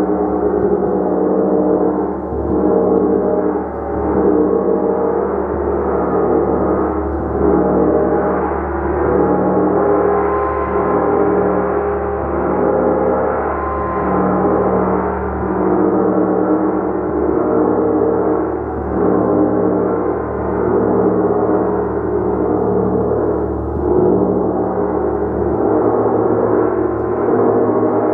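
Gong being played continuously: a dense, sustained wash of overlapping ringing tones that swells and ebbs about every two seconds.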